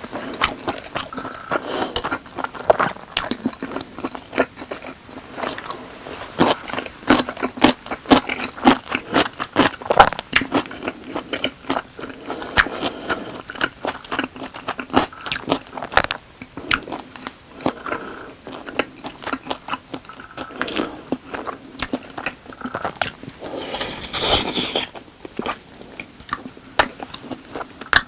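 Close-miked eating of Goobne Volcano boneless chicken and rice: continuous chewing and biting, with many short sharp crunches. About three-quarters of the way through comes one louder, hissier burst.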